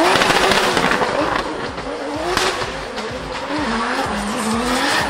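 BMW M3 drift car sliding sideways, its engine revs rising and falling in quick waves as the driver works the throttle, over the hiss and squeal of the spinning rear tyres on tarmac.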